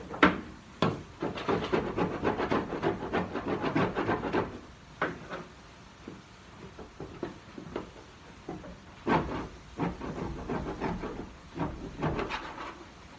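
Hand tool worked in quick strokes against the sheet metal of a car's quarter panel, in two runs of scraping, with a sharp knock at the start and a few single knocks in between.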